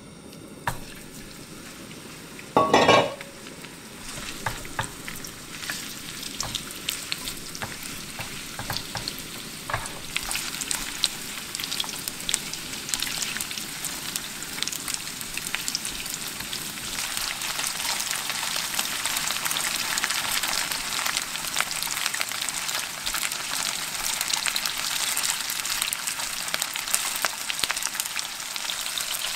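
Sliced chicken thigh meat frying in hot oil in a pan: a loud burst of sizzling about two and a half seconds in as the meat goes in, then a crackling, spitting sizzle that grows louder as the pieces are stirred with wooden chopsticks.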